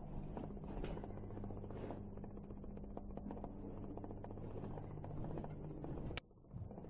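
Steady low hum under faint rustling and light ticks from a handheld camera being carried through an empty room. A sharp click about six seconds in, then the sound briefly drops away.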